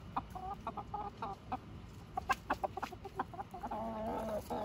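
Chickens clucking in short calls, with many sharp clicks throughout. A longer wavering call comes near the end.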